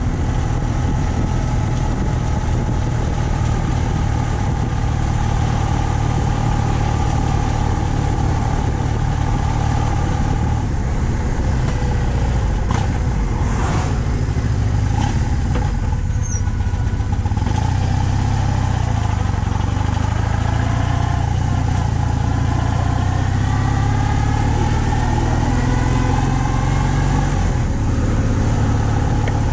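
BMW R 1200 C's air-cooled boxer twin engine running under way while riding, with a steady low rumble. Its pitch climbs several times in the second half as the bike accelerates.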